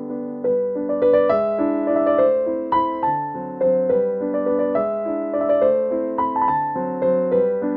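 Background piano music: a gentle melody of struck notes over held lower chords, growing fuller about a second in.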